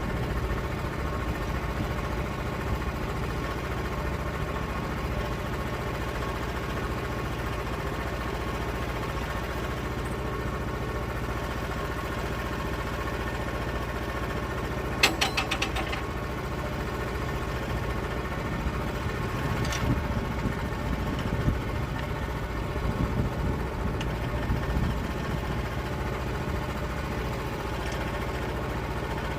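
Sawmill engine running steadily, with a short run of sharp clicks about halfway through.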